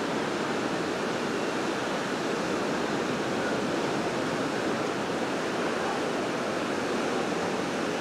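Steady, unbroken rushing wash of ocean surf.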